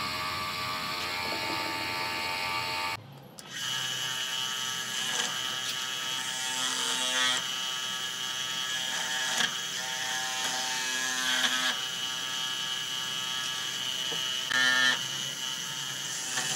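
Electric motor spinning a sanding spindle with a steady high whine. Louder grinding comes every few seconds as wood is pressed against the spindle tip. The sound drops out briefly about three seconds in.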